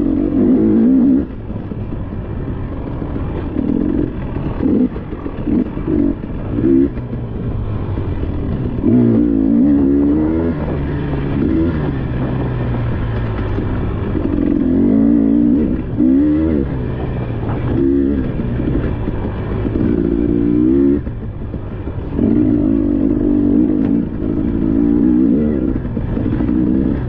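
Dirt bike engine revving in repeated bursts, its pitch climbing and dropping as the throttle is opened and closed, over a steady riding noise.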